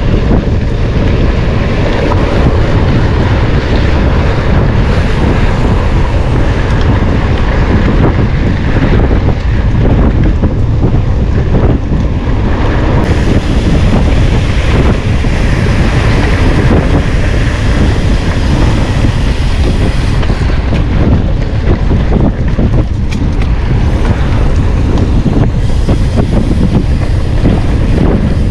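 Heavy wind buffeting on the microphone, mixed with rumble and rattling from a mountain bike ridden at speed over rough trail.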